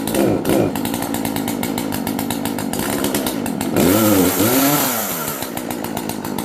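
Gas chainsaw engine running with a rapid, even beat, revved up and back down twice: briefly just after the start, and harder about four seconds in, which is the loudest part. The owner says the saw isn't working right.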